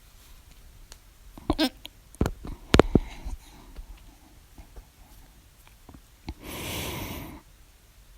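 A woman's loud hiccups: a quick run of sharp, voiced hiccups about a second and a half in, then a breathy sound lasting about a second a few seconds later.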